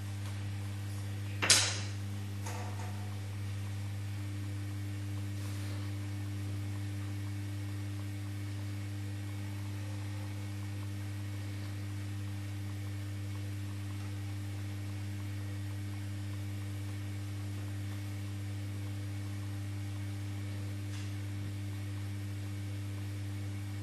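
Steady low electrical hum, with one sharp click about a second and a half in and a fainter click a second later.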